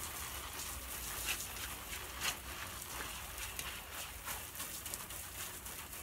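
Water spraying from a garden hose nozzle onto patio chairs and a table: a steady hiss of spray with irregular spattering as it hits them.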